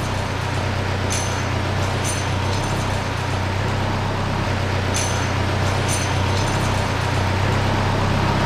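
Sawmill machinery running steadily with a deep, even hum, a few faint short clicks over it, cutting off abruptly at the end.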